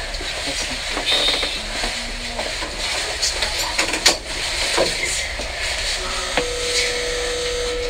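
Inside the cab of the Iwashimizu Hachimangu funicular car: a steady noisy hiss with scattered clicks and knocks, and about six seconds in a steady buzzer-like tone begins and holds.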